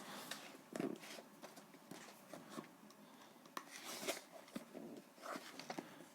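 Hands opening and handling a sealed cardboard keycap box: faint scraping and rustling broken by small clicks and taps.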